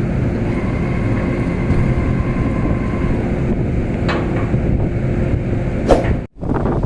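Steady low rumble of a boat's engine with wind on the microphone, broken by a couple of sharp knocks; the sound drops out abruptly for a moment near the end.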